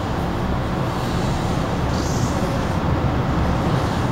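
An MTR M-Train electric multiple unit running along the track, heard from inside the carriage as a steady rumble of wheels and running gear, with a brief hiss about halfway through.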